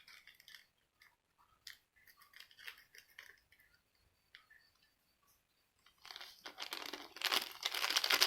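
A plastic seasoning sachet for instant noodles being handled and opened: scattered faint crinkles, then steady, louder crinkling and tearing from about six seconds in.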